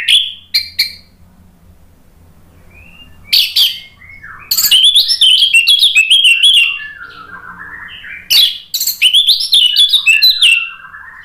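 Orange-headed thrush singing loud, quickly varied whistled phrases in several bursts, with quieter, lower warbling in between.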